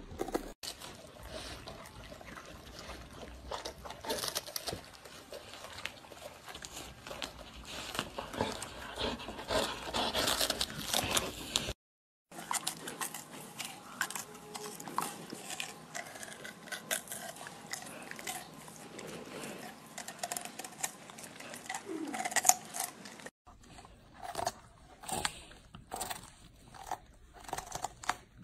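Golden retriever biting and chewing raw vegetables: crisp crunching and wet chewing, first on a green vegetable, then a raw potato, then a head of romanesco. A brief silent break about twelve seconds in.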